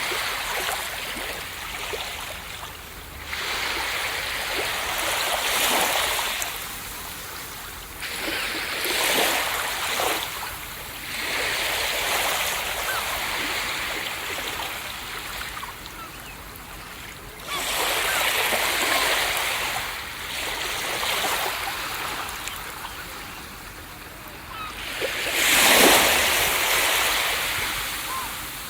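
Ocean waves breaking on a beach: surges of surf hiss that swell and fade every few seconds, the biggest one near the end.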